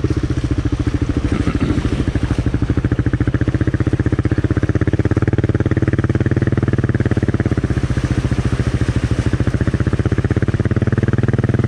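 Kawasaki KLR650 single-cylinder engine running at low revs with a steady, even beat while the bike is pushed through a river crossing. Fast water rushes around it.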